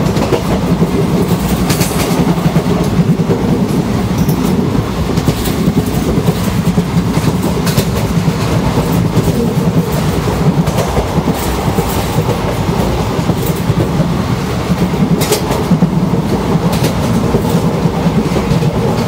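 Indian Railways express passenger train running at speed, heard from inside a coach by an open window or door. A steady rumble of wheels on the track and rushing air, with occasional sharp clacks from the rail joints.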